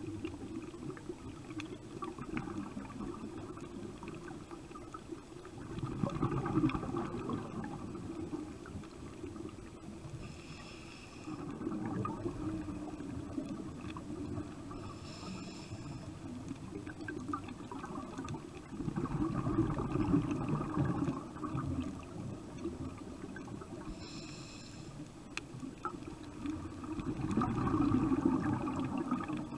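Sea water washing and splashing against a boat's hull, swelling louder every six to eight seconds. A short high chirp sounds three times.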